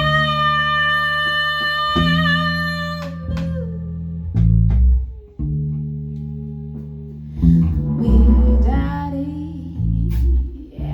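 Live band music: electric bass and guitar playing, with a long held sung note with vibrato in the first few seconds, then a falling melody line over the bass.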